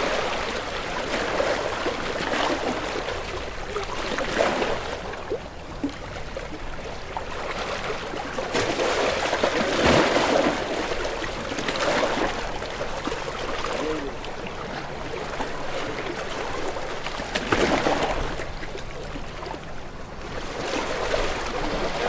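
Ocean waves washing in: a steady rush of surf that swells in separate surges every few seconds, the strongest about halfway through and again near the end.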